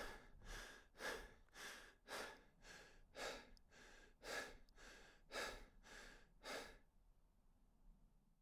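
Deep, fast human breathing: quick in-and-out breaths, about two a second, alternating louder and softer. The breathing stops about seven seconds in.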